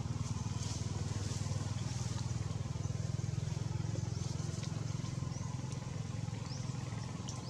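A steady low engine hum with an even fine pulse, like a motor vehicle idling. A few faint, short, high rising chirps come through in the second half.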